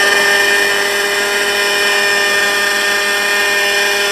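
JR Vigor radio-controlled helicopter hovering: its O.S. .61 two-stroke glow engine with a tuned pipe runs at a steady pitch, a high whine with the rotor.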